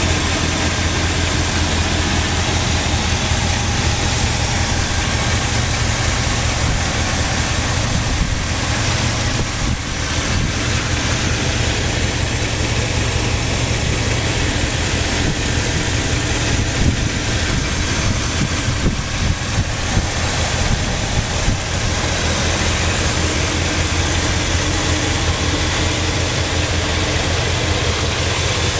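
Carburetted Oldsmobile 5.0-litre V8 in a Chevrolet Caprice idling steadily, heard close from the open engine bay, with an even low beat and no revving.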